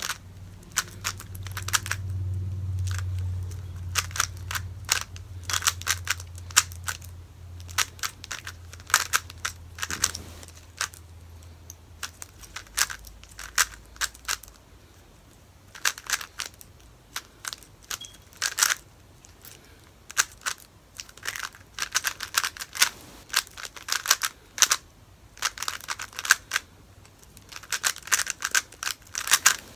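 Plastic speed cube being turned quickly by hand: rapid clicking of the layers in bursts with short pauses. A low hum runs underneath for about the first dozen seconds, then fades out.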